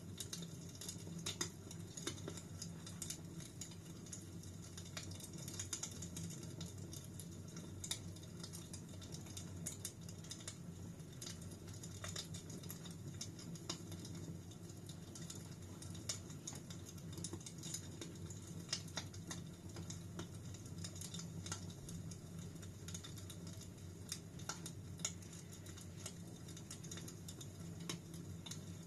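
Fire burning in a fireplace, crackling with irregular sharp pops and snaps over a steady low rumble.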